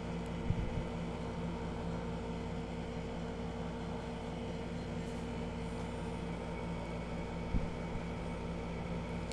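Steady cabin hum inside a new Toyota car while it is being driven, with a few faint constant low tones. Two faint knocks come about half a second in and again near the end.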